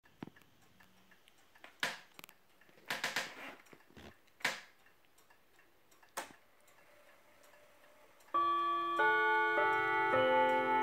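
Junghans mantel clock movement ticking, with a few louder clicks, then about eight seconds in its hammers start striking the chime rods: a new ringing note roughly every half second, each ringing on under the next.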